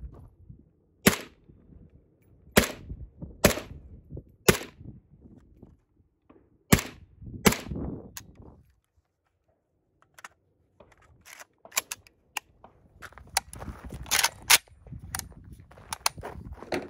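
Suppressed short-barrelled rifle firing single shots: six spaced reports over the first eight seconds, each a sharp crack with a short tail. After a lull of about two seconds, a quicker run of quieter cracks and clicks, the loudest two a little past fourteen seconds.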